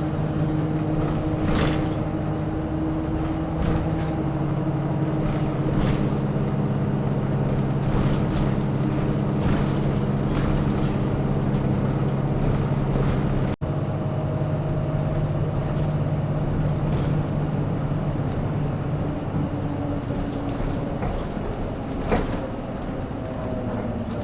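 Inside a moving bus: the diesel engine runs with a steady hum whose pitch steps down a little about four seconds in and shifts again near the end, over road noise and a few light rattles and clicks.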